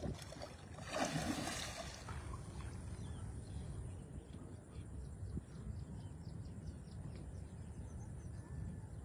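A hooked fish splashing and thrashing at the water's surface about a second in, a short burst of noise. After it comes a steady low rumble with faint light ticks.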